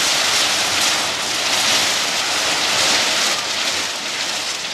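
Dense, steady hiss of a swarm of gunpowder rockets firing and streaking overhead at once, in a continuous barrage.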